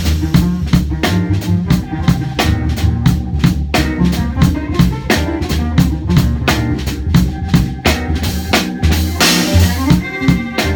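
Live trio playing a hip-hop groove: a drum kit keeps a busy beat of kick, snare and rimshots over an electric bass line, with cello. Held higher notes come in near the end.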